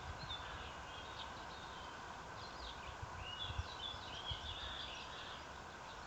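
Small birds chirping and twittering, faint and ongoing, with a few dull low thumps on the microphone, the loudest about three and a half seconds in.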